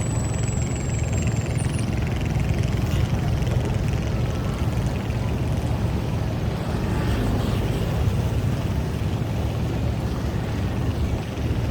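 An engine running with a steady low rumble that holds at an even level throughout.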